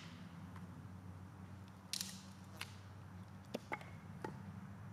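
Split firewood being pulled apart and handled after a machete strike: a sharp wooden crack about two seconds in, then a few light clicks and knocks of wood and blade.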